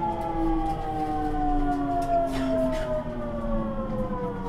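373 series electric multiple unit's VVVF inverter and traction motors whining, heard from inside the motor car, with the whine sliding steadily down in pitch as the train slows, over a low rumble of the running gear.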